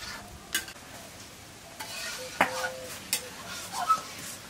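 Metal spatula scraping and clanking against a metal karahi (wok) while stirring food that sizzles lightly as it fries. A sharp clank about two and a half seconds in leaves the pan ringing briefly.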